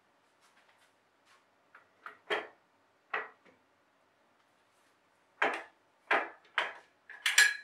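Wooden knocks and clatter as a glued-up mortise-and-tenon frame is set down onto aluminium bar clamps on a workbench, then a bar clamp is brought across it. A quicker run of knocks comes in the second half, ending in the loudest, sharpest metallic clack.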